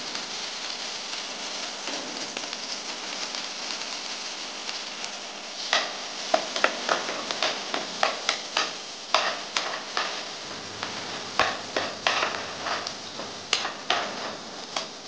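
Chopped garlic and ginger sizzling in hot oil in a pan. From about six seconds in, a steel spoon stirs them, clacking and scraping against the pan in irregular strokes, about two a second.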